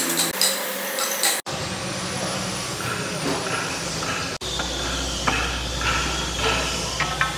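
Workshop machinery noise: a steady mechanical rumble and hiss with a low hum, broken twice by abrupt cuts.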